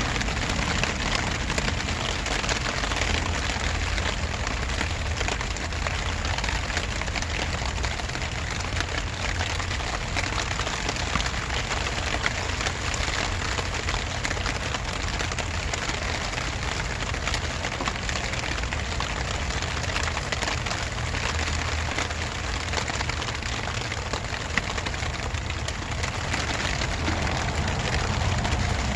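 Steady rain falling outdoors: a continuous hiss thick with the fine patter of drops, over a steady low rumble.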